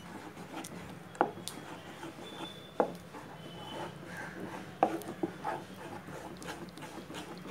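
Wooden spatula stirring thick urad dal porridge in a pan, rubbing and scraping through the batter. A sharp knock sounds three times, about every one and a half to two seconds, as the spatula strikes the pan.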